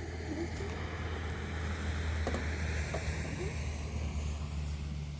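Vehicle engine running steadily, with road noise that rises slowly in pitch as it gathers speed.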